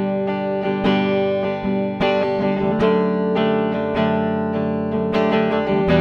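Ibanez GRGR121EX electric guitar played on a clean tone through its neck humbucker: a run of picked notes and chords ringing out.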